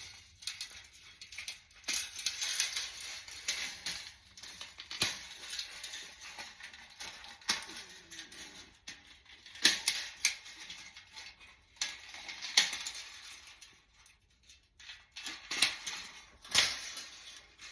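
Irregular metallic clicks, taps and light jingling as a coiled dryer heating-element wire and its metal heater housing are handled, with the spring being lined up on the insulators. The sharpest clicks come about ten, twelve and sixteen seconds in.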